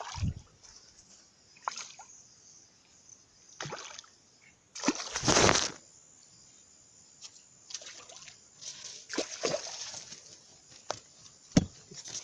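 Water splashing and sloshing in short, irregular bursts, the loudest and longest about five seconds in, with a sharp knock near the end.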